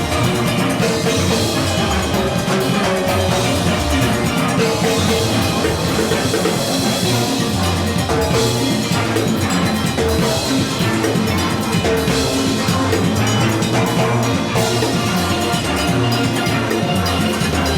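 Steel orchestra playing live: many steel pans carrying a fast melody over a driving rhythm section of drum kit and percussion.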